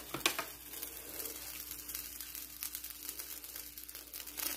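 Faint sizzle and crackle of a little milk heating in an enamel pot on a gas burner, with a couple of light clicks about a quarter second in and a steady low hum underneath.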